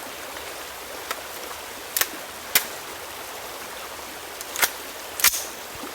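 Sharp metallic clicks and clacks from loading a Colt M4 carbine, about five over a few seconds, the loudest near the end, over a steady background hiss.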